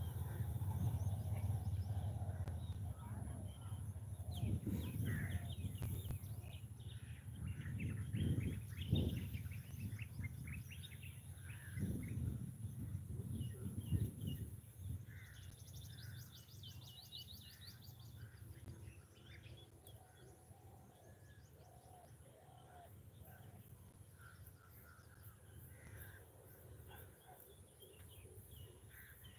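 Small birds chirping and calling in short notes, with one rapid high trill past the middle. A low rumble underneath fades away over the first half.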